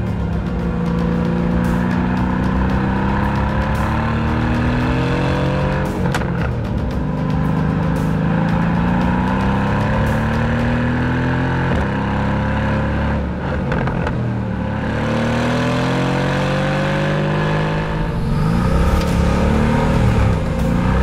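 Mercedes-AMG GT R's twin-turbo V8 being driven hard and drifted, revving up and falling back again and again, with music underneath.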